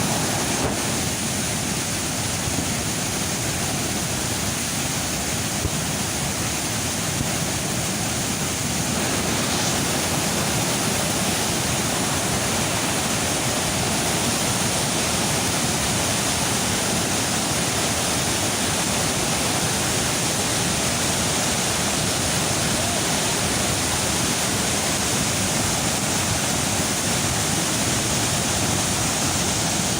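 Niagara River rapids just above Niagara Falls: a steady, dense rush of white water.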